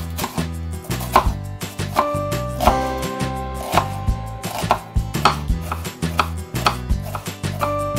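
Kitchen knife cutting through an onion and knocking on a wooden cutting board: a steady series of knife strikes, about two a second, as the onion is chopped fine. Background music plays underneath.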